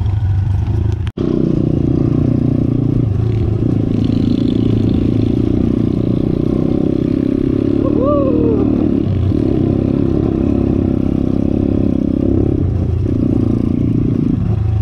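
Viar 150SF R pitbike engine running under the rider, the throttle opening and closing every few seconds as it rides along a rough dirt trail, with a brief cut-out about a second in.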